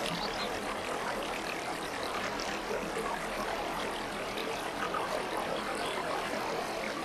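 Goldfish aquarium water bubbling steadily: a constant rushing with scattered small bubble sounds.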